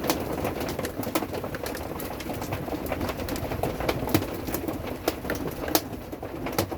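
Heavy rain drumming on a camper roof, with irregular sharp hits from individual hailstones or large drops.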